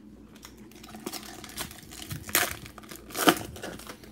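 A foil trading-card pack wrapper being torn open and crinkled, with sharp rips about two and a half seconds in and again just after three seconds.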